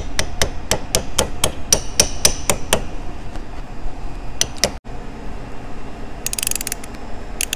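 Small hammer tapping on the head of a vintage Snap-on L-710 half-inch ratchet, about four sharp metal-on-metal strikes a second for nearly three seconds, seating the cover plate. A couple of lighter taps follow, then brief metallic rattling near the end.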